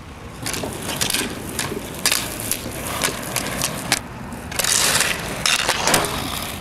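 Inline skate wheels rolling and scraping on asphalt, with a street hockey stick clicking against a ball; a louder scraping rush about four and a half seconds in.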